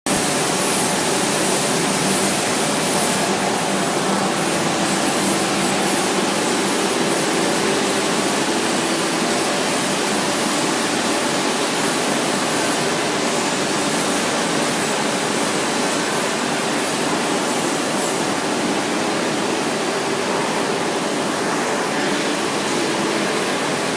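Höfler H1000 gear grinding machine running: a steady, even hiss of grinding and coolant spray with a faint steady hum underneath.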